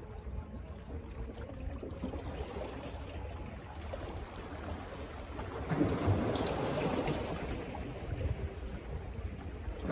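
Seawater splashing and washing against shoreline rocks as a hooked fish is brought in close, with a louder surge of splashing about six seconds in, over a steady low rumble.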